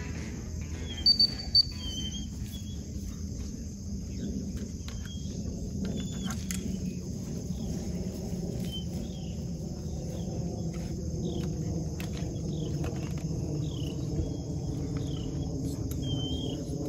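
Steady outdoor insect chorus of crickets, with repeated short falling chirps and a low rumble underneath. About a second in come three short, loud, high-pitched tones close together.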